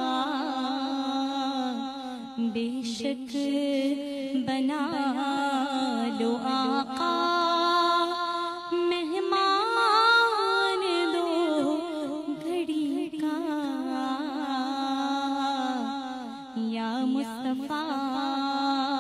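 A woman singing a naat in long, held, ornamented notes, her pitch sliding up and down, with no instrument heard.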